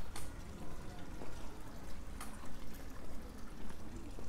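Outdoor old-town street ambience: a low steady background rumble with a few sharp clicks and clinks scattered through it.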